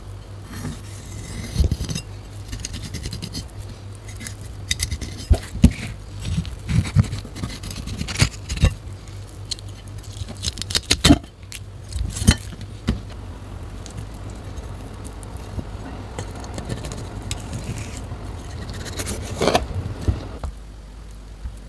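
Chef's knife filleting a small whole fish on a plastic cutting board: irregular taps and scrapes of the blade on the board and cutting through the fish, with a steady low hum underneath that drops away near the end.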